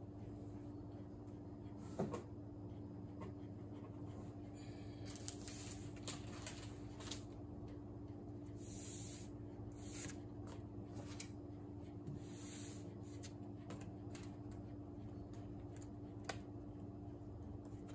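Quiet room with a steady low hum, a sharp click about two seconds in, scattered small clicks and knocks, and a few brief rustles of paper being handled, around five, nine and twelve seconds in.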